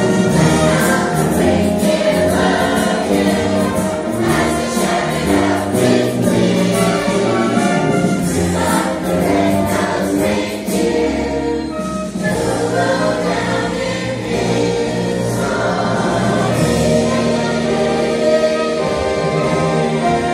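Large choir singing with a live orchestra accompanying, light percussion ticking along through the first half.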